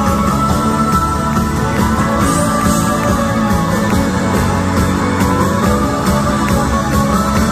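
Live rock band music heard through a concert PA: an electric guitar plays a repeating phrase of sliding notes, about every two seconds, over the full band.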